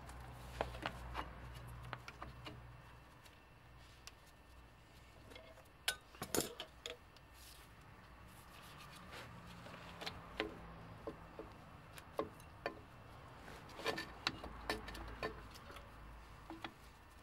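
Gloved hands working the brake shoes and their hardware on a Ford Ranger's rear drum-brake backing plate, making irregular light clicks and knocks. One sharper knock comes about six seconds in and a cluster comes around fourteen seconds.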